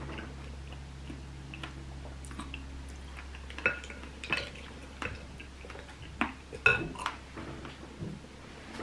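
A spoon clinking against a bowl of berries, coconut water and ice: a scatter of sharp clinks, a few of them ringing briefly, the loudest a little past the middle.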